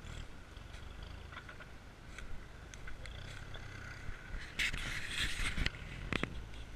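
Toyota off-road 4x4's engine running low and slow as it crawls over a mound on a forest track, a steady rumble with scattered small clicks and a louder rustling scrape a little past the middle.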